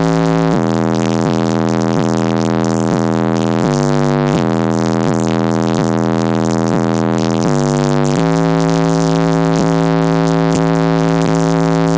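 Digital Designs 1012 12-inch car subwoofer playing a bass-heavy track loud inside the car cabin, holding low notes that step to new pitches every few seconds.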